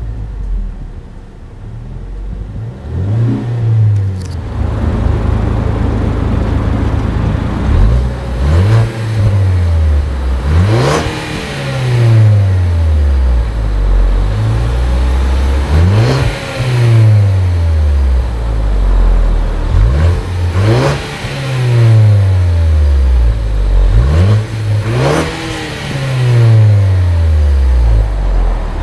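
2013 Ford Focus ST's 2.0-litre turbocharged EcoBoost four-cylinder revved again and again at standstill, heard at the centre exhaust tip. After a few seconds of idle, each rev climbs quickly in pitch and falls slowly back to idle, about every four to five seconds.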